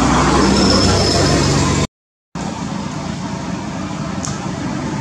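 Steady outdoor background noise with a faint high tone, broken by about half a second of complete silence two seconds in, and one short high squeak near the end.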